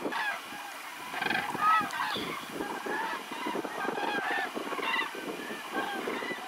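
Geese honking: many short calls from several birds, overlapping and irregular.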